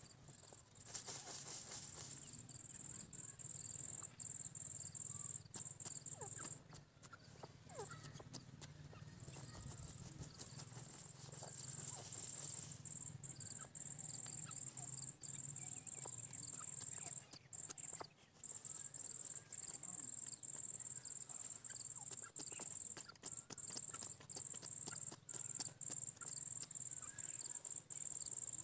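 A steady, high-pitched insect-like trill, broken by brief gaps, with scattered faint clicks.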